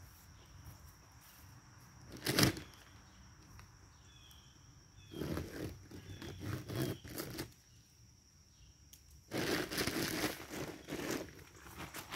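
Crinkling and rustling of a plastic feed bag being handled, mixed with footsteps in dry leaf litter, in noisy spells: a short sharp one about two seconds in, then longer ones around five and nine seconds in.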